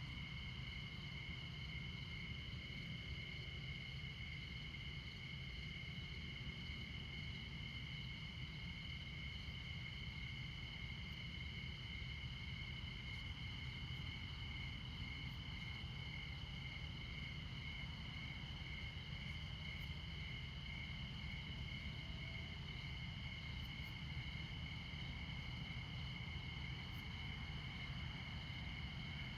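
Crickets chirping in steady, unbroken high trills, several at once, one of them in a fast pulse. Underneath runs a low, steady rumble of distant interstate traffic.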